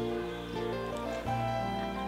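Instrumental background music with held notes that change every half second or so.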